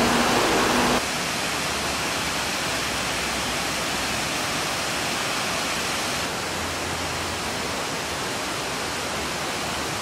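Mountain river rushing over rocks and through small rapids: a steady watery rush that drops a little in level about a second in and again a little past halfway.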